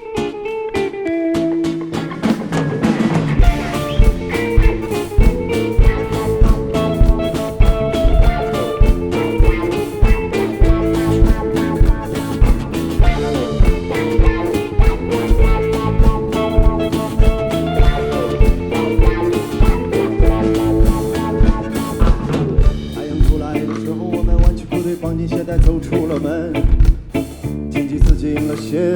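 Rock band playing an instrumental passage live: guitar lines over a steady drum-kit beat, with the drums coming in about three seconds in.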